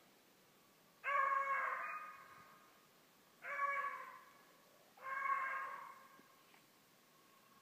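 Young beagle baying on a rabbit's scent: three drawn-out bays about two seconds apart, each trailing off.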